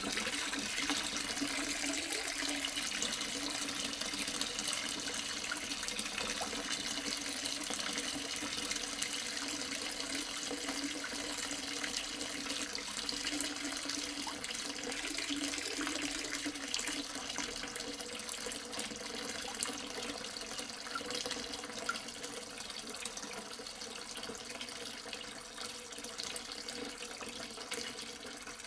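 Water running steadily, slowly getting quieter toward the end.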